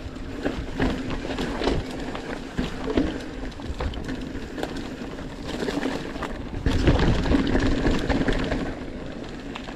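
Orbea Occam mountain bike descending a dirt forest trail: tyres rolling with a steady low hum, the bike clattering and knocking over the rough ground, and wind buffeting the action-camera microphone. It gets louder and rougher about seven seconds in.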